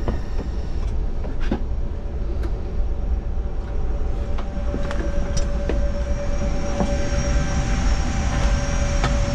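Steady whirring rush of air-conditioning and equipment cooling in an Airbus A350's avionics compartment, with a constant whine over a low rumble. A few short knocks and bumps break in as he climbs down through the floor hatch.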